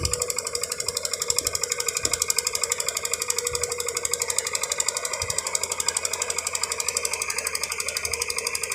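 Heavy construction machine running with a fast, even rattling pulse, about ten beats a second, steady throughout.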